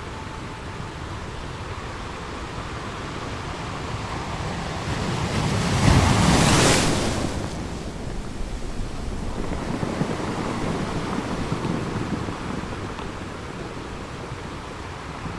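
Wind rushing over the microphone, with one loud gust that swells about five seconds in, peaks around six to seven seconds and dies down by eight.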